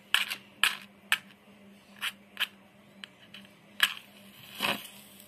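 A soaked matchstick being struck again and again against the striking strip of a matchbox: about seven short sharp scratches, then a longer scrape near the end. The damp head does not properly catch.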